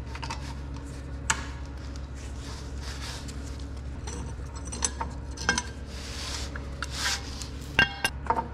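Metal hand tools clinking and scraping against the skid loader's drain-line fittings as a damaged bolt is worked loose, with a few sharp clicks and one ringing metallic clink near the end, over a steady low hum.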